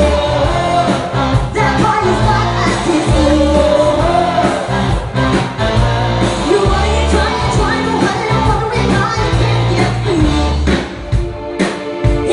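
Live cover band playing loud, upbeat rock-pop with a heavy bass line, and a woman singing lead into a microphone. The music dips briefly near the end.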